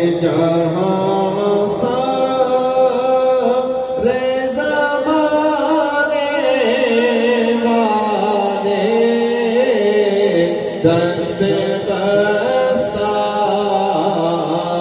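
A man singing a naat, an Urdu devotional poem in praise of the Prophet, solo, drawing out long held notes that slide and waver in ornamented runs.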